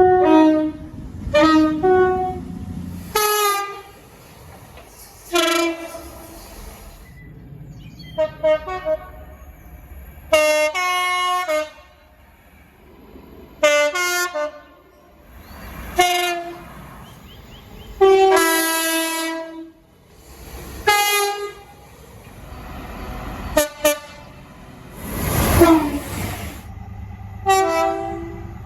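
A string of locomotive air-horn blasts, many sounding a chord of several notes: mostly short toots, with a few held for about a second and a half. A low rumble runs under the first few seconds. A noisier, smeared blast comes near the end.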